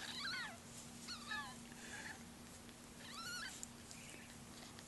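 A very young, hand-reared, bottle-fed kitten mewing three times: thin, high cries that rise and fall in pitch.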